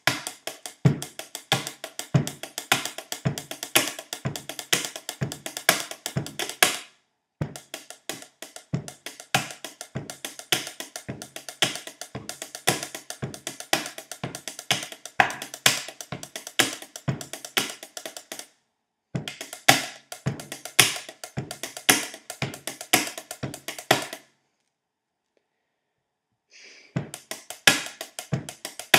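Pen tapping: pens and fingertips drummed on a wooden tabletop in a fast rhythmic pattern, sharp clicks mixed with lower knocks. It stops short a few times, the longest break about two seconds long near the end.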